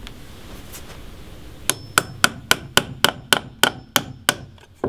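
Steel claw hammer driving nails started at an angle as toenails through a metal framing clip into a 2x4. A quick run of about a dozen sharp strikes, roughly four a second, begins nearly two seconds in, with one more blow near the end and a faint high metallic ring.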